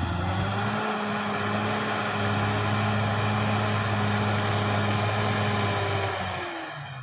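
CAT D6R XL bulldozer's diesel engine running steadily at high revs, then throttling down near the end, its pitch and loudness falling.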